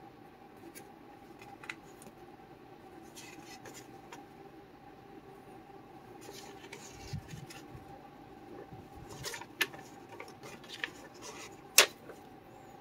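Hands handling a plastic model kit's box and bagged parts: scattered light clicks and crinkles of plastic and cardboard, the sharpest click near the end, over a faint steady hum.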